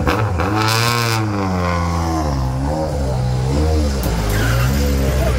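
Hyundai i20 N Rally1 rally car's 1.6-litre turbocharged four-cylinder engine running, revved up and down in repeated throttle blips, with a short hiss about half a second in.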